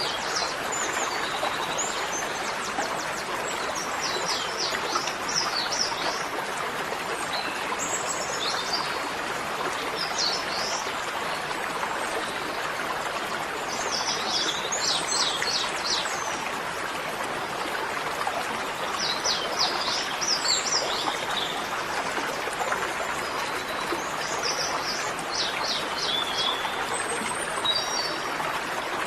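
Birds chirping in short, rapid phrases that recur every few seconds over a steady rushing noise like running water.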